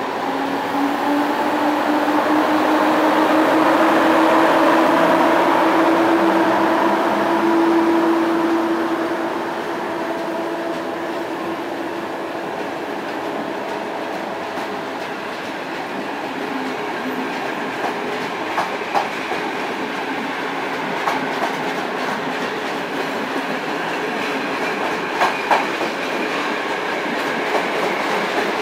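Passenger train led by an EP07 electric locomotive passing close by. A steady motor tone rises slightly in pitch and fades out after about nine seconds. Then the coaches roll past with steady wheel-on-rail noise and a few clacks over rail joints.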